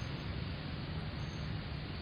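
Daihatsu Grand Max blind van running, a steady low rumble of engine and road noise with no change in pitch.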